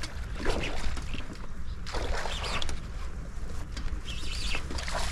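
Wind rumbling on the microphone, with a few short, irregular rustling noises over it.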